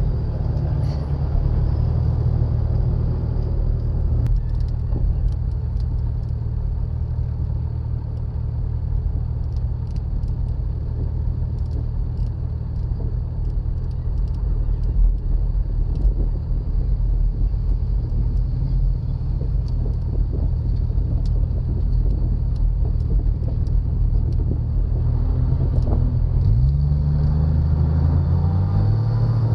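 Jeep Wrangler engine running steadily under load, heard from the hood as a deep steady rumble while it drives through sand. Near the end the revs climb and the pitch rises.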